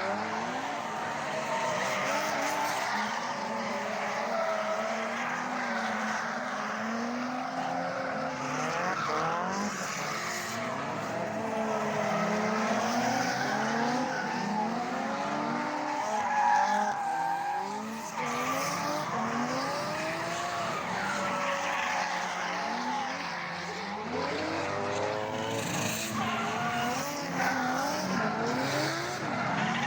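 Drift cars on track: several engines revving up and down over and over, over a steady hiss and squeal of tyres sliding.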